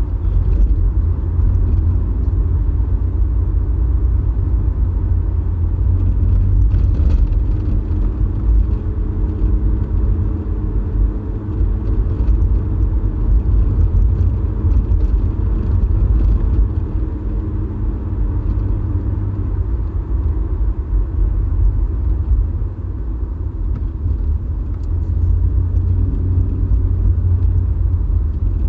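Car driving, heard from inside the cabin: a steady low rumble of the engine and tyres on the road. Through the middle stretch a faint steady hum sits above the rumble.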